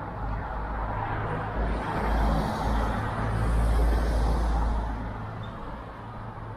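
A road vehicle passing close by, its engine and tyre noise swelling over a couple of seconds and then fading away.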